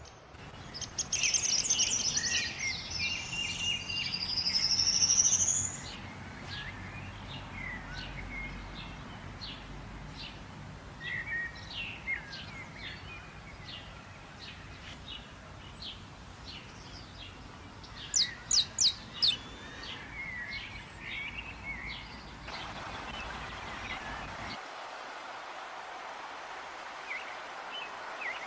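Wild birds singing and calling over a steady natural background hiss. A loud burst of song with trills and a rising whistle comes in the first few seconds, scattered short chirps follow, and a run of four sharp, high notes comes about two-thirds of the way through.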